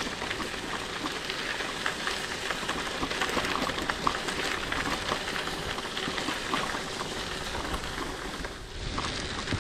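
Bicycle tyres rolling over a rough path surface: a steady crackling hiss, with a short lull near the end.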